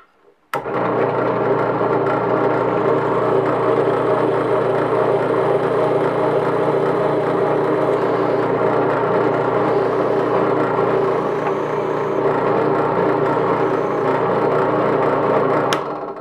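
Drill press running, its bit boring a hole into a clamped piece of walnut: a steady motor hum with the cutting noise, starting suddenly about half a second in and stopping shortly before the end.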